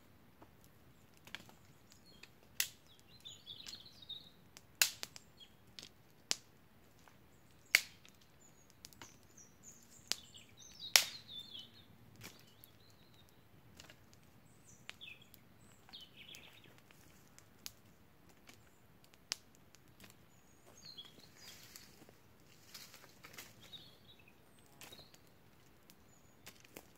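Quiet forest ambience with scattered bird chirps, broken by about half a dozen sharp snaps or cracks a second or more apart. The loudest comes a little before the middle.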